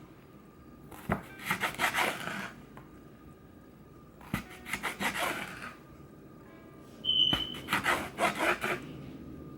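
Kitchen knife cutting bell pepper strips on a wooden cutting board: three runs of quick cuts, each lasting about a second and a half. A brief high beep sounds about seven seconds in.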